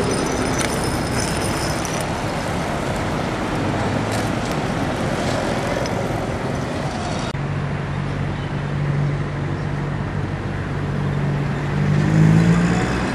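Town road traffic: a steady rush of passing vehicles, then after an abrupt cut about seven seconds in, a vehicle engine's low steady hum that rises in pitch and grows louder near the end.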